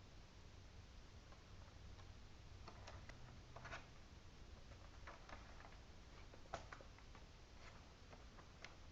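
Faint, scattered plastic clicks and taps as a laptop keyboard is fitted into place and its edge tabs are seated, with a sharper click about six and a half seconds in.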